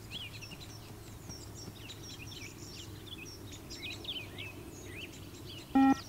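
Small birds chirping over a steady low outdoor hum. Near the end comes a single short, loud electronic beep from the multi-stage fitness (beep/PACER) test recording, marking the end of the first 20 m shuttle.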